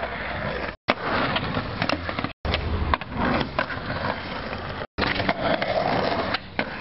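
Skateboard wheels rolling on concrete, with sharp clacks of the board, in short stretches broken three times by abrupt dropouts.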